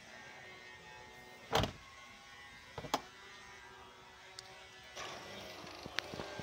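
Power liftgate of a 2019 Jeep Cherokee closing on its electric motor, then shutting with a solid thud about one and a half seconds in, followed by a couple of sharp clicks a second later.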